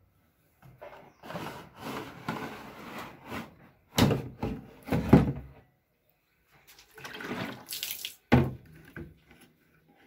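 The plastic condensed-water tank of a Whirlpool condenser tumble dryer being handled, with water sloshing inside it in two stretches. Several sharp hollow plastic knocks, the loudest about four, five and eight seconds in.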